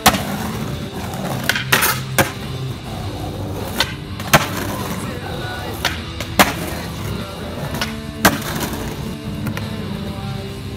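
Skateboard pops and landings on concrete: a series of sharp cracks every second or two, over background music with held tones.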